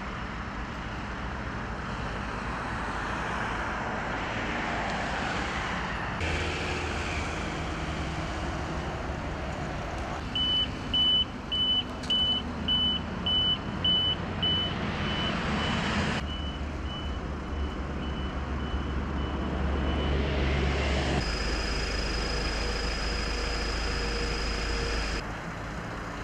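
Road traffic and vehicle engines running, with a vehicle's reversing alarm beeping about twice a second for several seconds midway, loud at first and then fainter.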